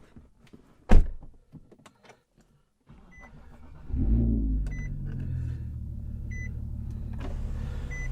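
A loud thump about a second in, then a 2011 Infiniti G37S's 3.7-litre VQ37 V6 cranks and starts about four seconds in, flaring briefly before settling to a steady idle through its aftermarket exhaust. A dashboard warning chime beeps about every second and a half.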